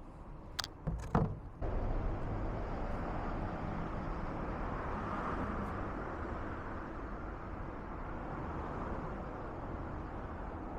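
Two or three sharp knocks, then a steady rushing outdoor background noise that starts abruptly about one and a half seconds in.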